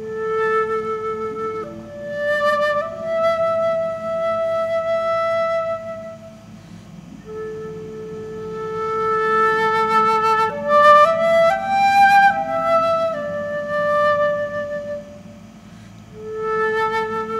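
A flute playing a slow melody of long held notes, pausing briefly twice, over the low steady drone of a room full of people humming together.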